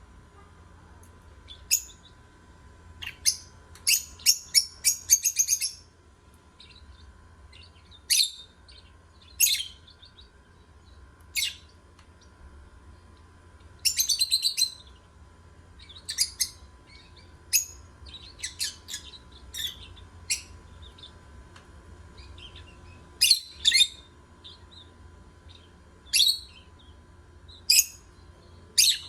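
Lovebirds chirping: short, shrill calls every second or two, breaking into quick runs of chirps a few seconds in and again about halfway through.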